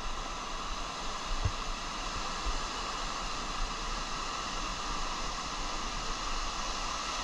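Ocean surf washing up over the sand: a steady rushing hiss with no break.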